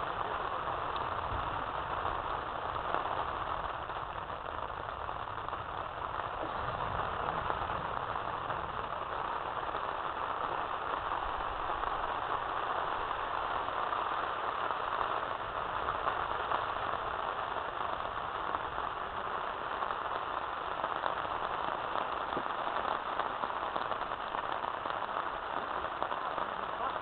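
Steady rushing noise of a rainstorm with wind, and low wind buffeting on the microphone in the first few seconds.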